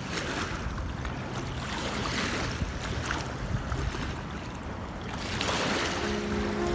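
River waves washing and splashing in repeated swells, with a low wind rumble on the microphone. Music begins faintly near the end.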